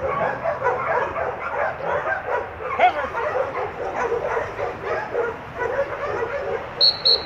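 Many dogs barking and yipping at once in a continuous, overlapping chorus. Near the end, two short sharp blasts on a dog-training whistle.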